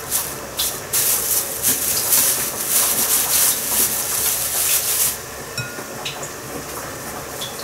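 Thin plastic bag crinkling and rustling as hands roll a ball of minced meat inside it, from about a second in until about five seconds in, then quieter with a few faint small clicks.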